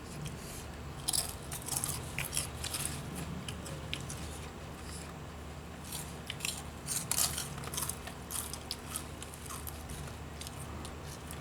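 A person chewing crunchy corn snack chips with the mouth close to the microphone: irregular clusters of sharp crunches, busiest about a second in, around two to three seconds in, and around seven seconds in, over a steady low hum.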